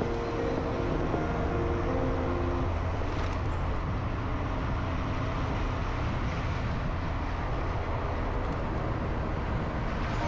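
Steady low rumble of a motor vehicle with road noise.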